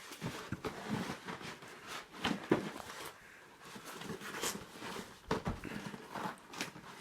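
Packaging being handled as a coffee machine is worked out of its box: scattered light rustles and knocks, with louder bumps about two and a half seconds in and again a little past five seconds.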